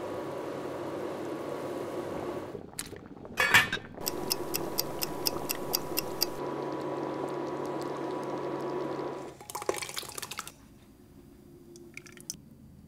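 Sauce simmering steadily in a pot, with one sudden loud noise about three and a half seconds in, then a couple of seconds of quick, even, clock-like ticking. The simmering ends after a short burst of noise about nine and a half seconds in, and near the end thick sauce is poured quietly from a pan into a steel pot.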